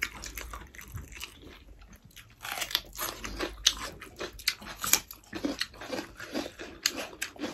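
Crisp crunching bites into raw red bell pepper, with chewing; a quick run of crunches starts about two seconds in.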